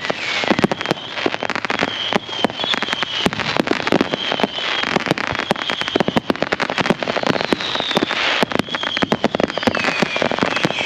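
Fireworks display going off in a rapid, continuous volley of bangs and crackles. Short high whistles sound over it now and then.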